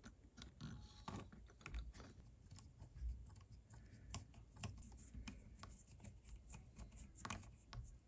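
Faint, irregular clicks and taps of tweezers and small plastic parts being handled as a micro servo and its arm are fitted into a model truck chassis.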